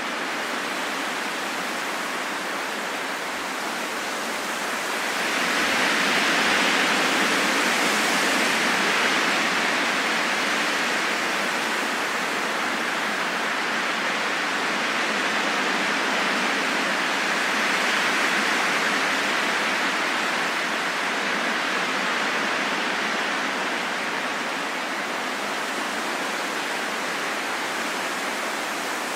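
Wind blowing steadily, a smooth rushing hiss that swells louder about five seconds in and again a little past the middle before easing back.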